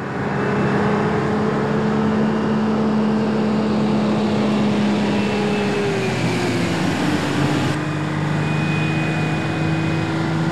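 Truck engine running steadily; its pitch slides down about six to seven seconds in, then holds steady lower.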